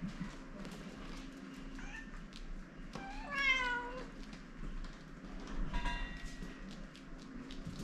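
Domestic cats meowing for their food before a meal: one long, clear meow about three seconds in, rising then falling, with fainter, shorter meows around two and six seconds in, over light ticks and taps.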